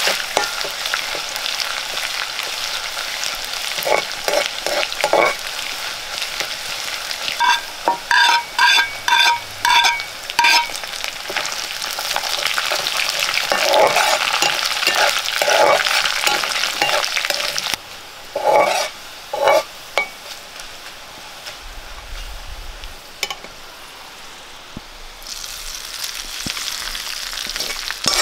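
Food sizzling in oil in a pan while being stirred, with scraping strokes of the spoon. About eight seconds in, a run of ringing metallic taps comes from the spoon striking the pan. The sizzle turns quieter for a few seconds partway through, then comes back.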